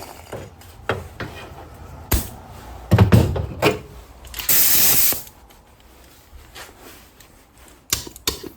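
Air-tool quick-connect couplers being handled and snapped onto the air hose: metallic clicks and knocks, and a short hiss of compressed air lasting under a second about halfway through.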